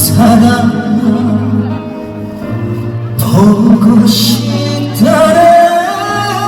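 Live amplified music: a male vocalist singing held notes with vibrato over a band backing.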